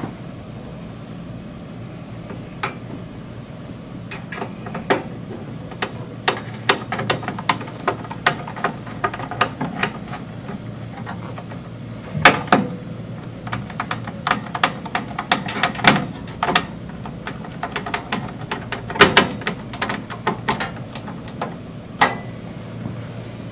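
Clicks, taps and light metallic knocks of a flat-panel TV's perforated sheet-metal shield cage and its screws being handled and fitted with a screwdriver, coming in quick irregular runs, with two louder knocks about twelve and nineteen seconds in.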